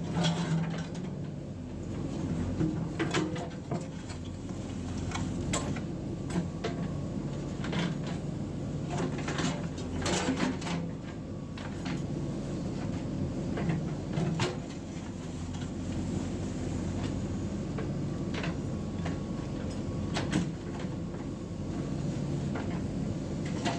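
JCB 3DX backhoe loader's diesel engine running steadily, with scattered sharp metallic clanks and knocks from the working machine, the loudest about ten, fourteen and twenty seconds in.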